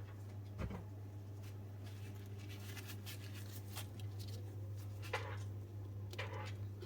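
Faint scratching strokes and light taps as gold paint is applied to the edges of resin coasters, over a steady low hum.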